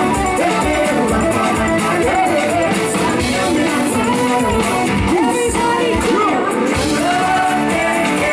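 Dance music with a singing voice over a steady beat.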